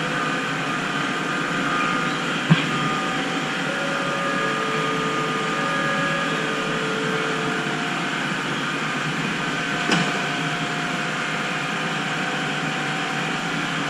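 Electric metro train at the platform: a steady hum with several held whining tones that come and go, and two short sharp knocks, one about two and a half seconds in and one near ten seconds.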